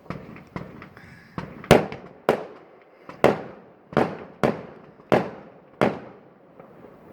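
Fireworks going off: about ten sharp bangs, half a second to a second apart, each echoing away briefly. The loudest comes about a second and a half in.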